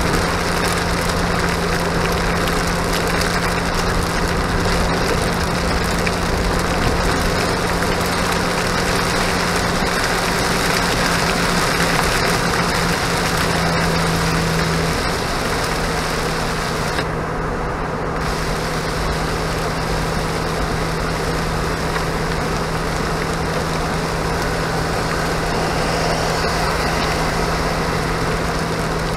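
Jeep driving on a wet highway in the rain, heard from inside the cab: a steady engine hum under a continuous hiss of tyres on wet road and rain. The hum steps slightly lower in pitch about halfway through, and the hiss drops out briefly about two-thirds of the way in.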